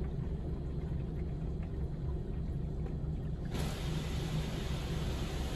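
Automatic car wash heard from inside the car's cabin: a steady low rumble, with the hiss of the water spray on the car dropped away until about three and a half seconds in, when the spray comes back on abruptly.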